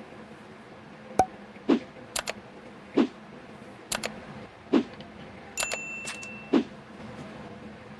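A row of short clicks and knocks, then a brief ringing chime a little past halfway: the mouse-click and notification-bell sound effects of a subscribe-button animation.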